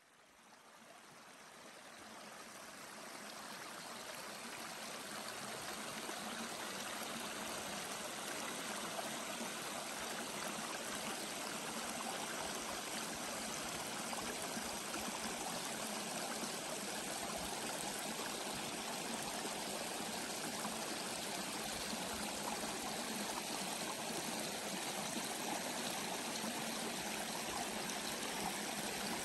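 Shallow woodland brook babbling steadily over stones and rocks, fading in over the first few seconds.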